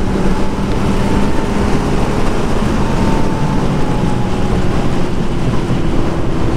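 Kawasaki Z900's inline-four engine with a performance exhaust running steadily at highway speed in sixth gear, under heavy wind noise on the microphone.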